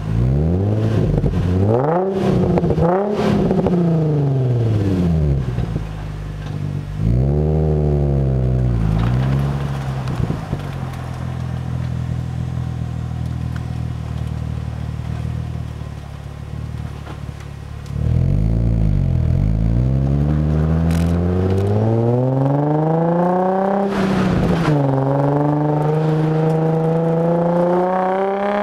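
Infiniti G35 coupe's 3.5-litre V6 through an Exoticspeed titanium and stainless cat-back exhaust, heard from the back of the car. The revs rise and fall a few times, the engine runs steadily at low revs for several seconds, and then it accelerates hard. During the pull the revs climb, drop suddenly at a gear change about two-thirds of the way through, and climb again.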